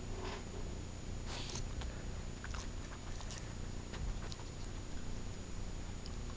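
A dog biting and chewing at an object, a run of small irregular clicks and scuffs with a brief louder rustle about a second and a half in.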